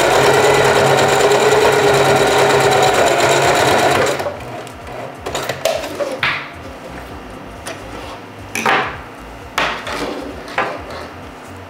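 Singer 4423 heavy-duty sewing machine stitching at speed for about four seconds, then stopping abruptly. After that come soft rustling and a few brief knocks and swishes as the wig cap and its hair are handled.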